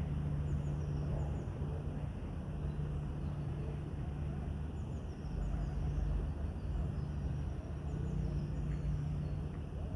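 Steady low rumbling hum with faint, brief high-pitched bird chirps now and then.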